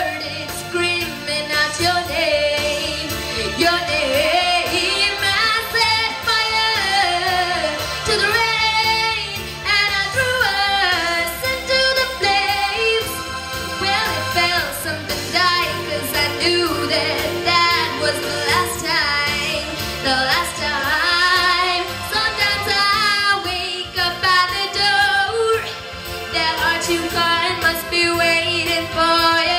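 A boy singing a pop ballad into a microphone over keyboard accompaniment with a steady beat, his voice sliding up and down in long sung runs.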